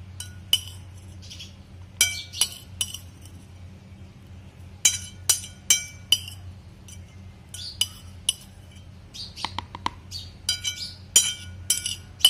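A spoon clinking and tapping against a plate in several short clusters of sharp, ringing clinks, as chopped onion is scraped off it into a plastic tub.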